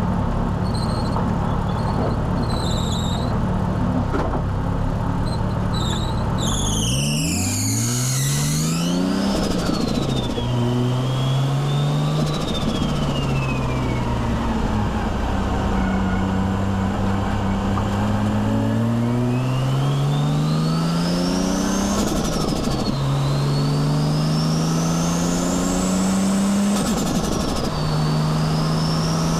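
Nissan Skyline R33's turbocharged RB25DET straight-six running steadily with an on-and-off high squeal, which the owner puts down to the alternator belt. Then the engine pulls hard through several gears, the revs climbing and dropping at each shift, with a high whine rising and falling with the revs.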